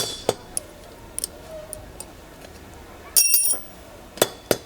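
Metal tools and bicycle parts clinking and tapping in scattered sharp clicks, with one brighter ringing metal strike about three seconds in, while the old axle is being taken off the chainring.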